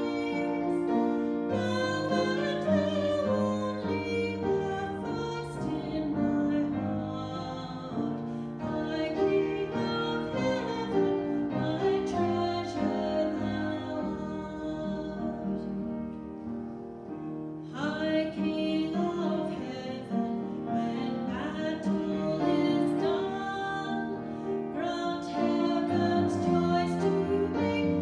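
A woman singing a hymn solo, accompanied on an upright piano. Around two-thirds of the way through the voice thins out for a few seconds, leaving mostly piano, then the singing resumes.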